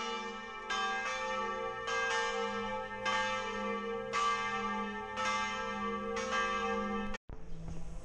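Church bells ringing, with a fresh stroke about once a second over the steady hum of the bells still sounding. The ringing cuts off suddenly near the end.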